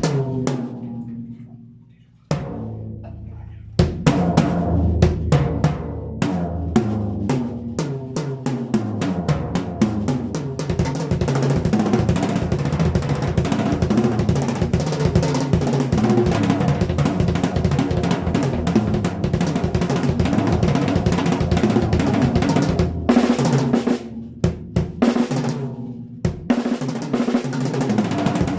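Yamaha Stage Custom drum kit being played, its toms fitted with Remo Emperor Clear heads. A few single hits ring out, then fast fills across the toms with snare and bass drum. Near the end there is a short break of scattered hits before the fast playing resumes.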